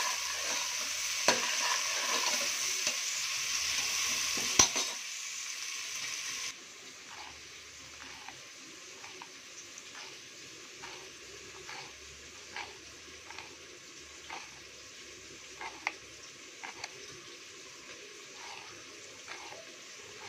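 Sliced onions and green chillies sizzling in oil in a pressure cooker, stirred with a ladle that clacks against the pot, for the first five seconds or so. Then, much quieter, a knife dicing tomato on a plastic cutting board, soft taps about once a second.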